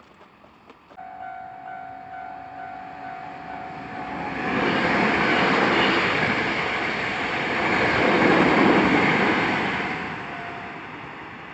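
Hankyu Kyoto Line electric train passing a level crossing. A steady high tone comes in about a second in, then the train's running noise swells from about four seconds, peaks twice and fades near the end.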